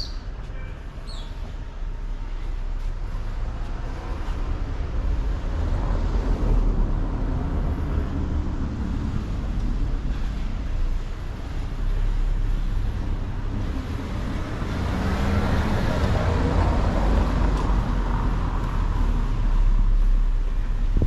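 Street traffic: motor vehicles running and passing close by, with a steady low rumble that swells louder for several seconds in the second half.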